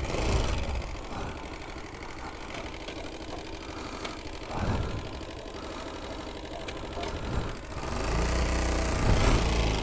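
Small ATV engine running at low revs, swelling briefly twice around the middle, then louder and harder-working over the last two seconds.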